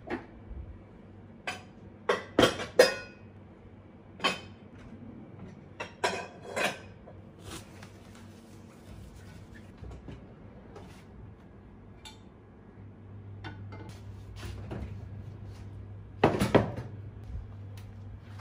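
Kitchen drawer and cupboard doors opening and closing, with dishes and utensils clinking: a scattered series of sharp knocks and clatters, loudest about three seconds in and again near the end, over a faint steady low hum.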